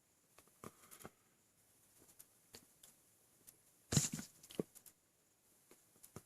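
A man hiccups once, sharply, about four seconds in: hiccups brought on by an over-full stomach after eating too much. A few faint clicks come before and after it.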